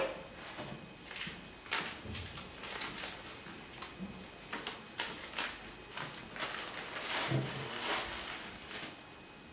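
A hair dryer being handled: irregular clicks, taps and rustles, thickest about six to nine seconds in. There is no steady running noise, so the dryer is not switched on.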